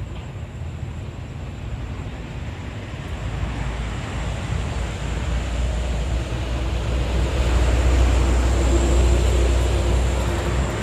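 A road vehicle passing, heard as a low rumble that builds steadily and is loudest near the end.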